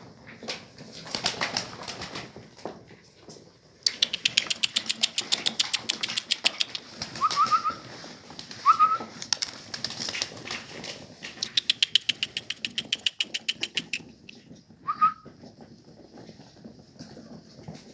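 Pigeons flapping their wings in rapid runs of wingbeats for several seconds, with a few short rising whistles.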